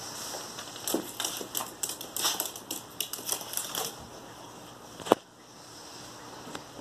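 Small dogs' claws clicking and scrabbling rapidly on a tiled floor as they scamper and play. About five seconds in comes a single sharp click, the loudest sound.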